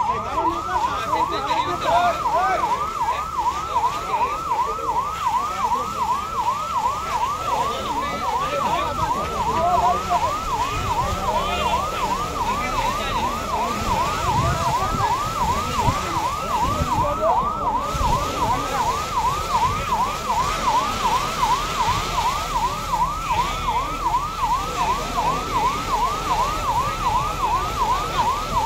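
Fire engine's electronic siren on a fast yelp, sweeping up and down a couple of times a second without a break, then stopping abruptly.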